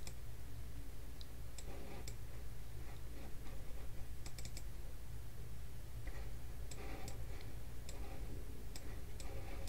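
Scattered clicks of a computer mouse, some in quick pairs or clusters, as Street View is stepped forward, over a low steady hum.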